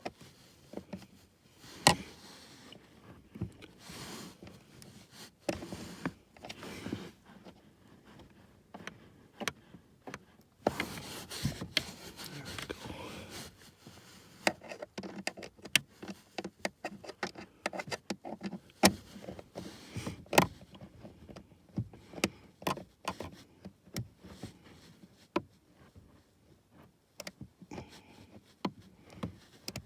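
Small socket and ratchet clicking irregularly as a blower-motor mounting screw is turned by hand in a cramped spot, with rustling and handling knocks.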